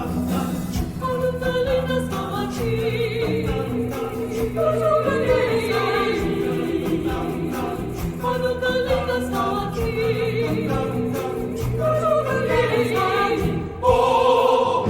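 Choral music: a choir singing a sustained, wavering melody over steady instrumental accompaniment.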